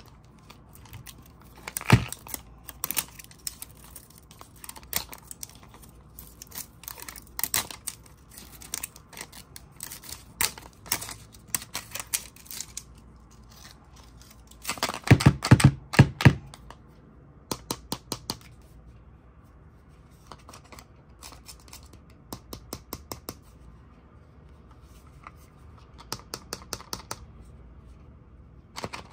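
Plastic wrap and a printed label being torn and crinkled off a hard plastic toy capsule, with fingernails clicking and scratching on the plastic shell in irregular short clicks. A denser, louder run of clicks and scraping comes about halfway through.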